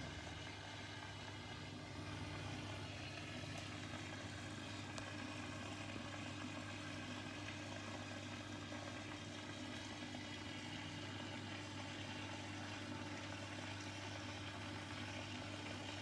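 Aquarium aeration running: a steady low hum with air bubbles fizzing and bubbling in the tank water.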